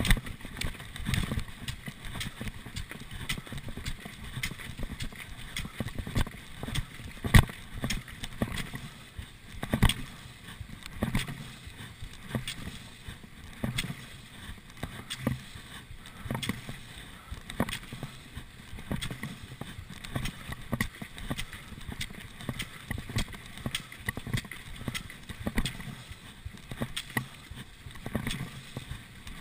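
A cross-country skier striding in classic tracks: sharp clicks and thuds of ski-pole plants in packed snow about once a second, over the scraping hiss of the skis gliding in the groomed tracks.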